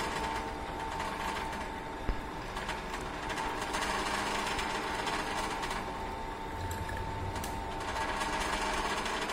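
Sectioned three-cylinder petrol engine turned over by its electric drive motor: a steady mechanical running sound with a constant whine as the camshaft, rocker arms and valves work.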